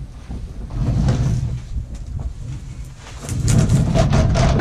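A man grunting and straining in two long bouts as he heaves a heavy sycamore log round across a pickup's tailgate, with the wood scraping and knocking against the bed liner near the end.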